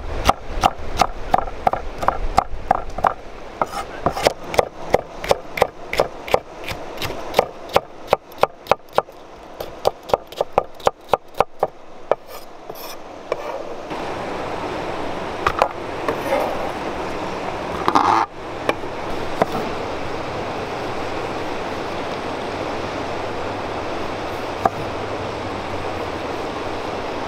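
Wavy-bladed knife chopping bell pepper into thin strips on a wooden cutting board: rapid, even strokes, about three or four a second, for some twelve seconds. The chopping then stops, leaving a steady hiss with a few scattered knocks.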